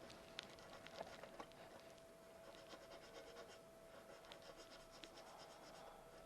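Near silence: faint light clicks and scratches from handling at the workbench, over a faint steady hum.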